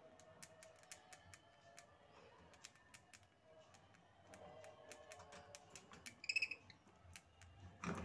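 Budgerigars in a cage: many soft, quick clicks of beaks nibbling at food offered through the bars, with one short high chirp a little after six seconds.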